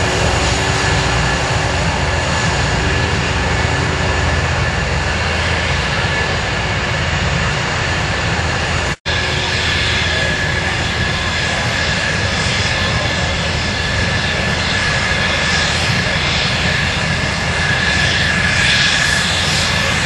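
Jet fighter engines running at taxi power: a steady roar with a high whine, growing somewhat louder near the end. The sound drops out for an instant about 9 s in.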